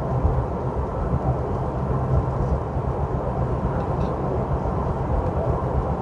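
Steady low rumble of tyre, road and engine noise inside a moving car's cabin.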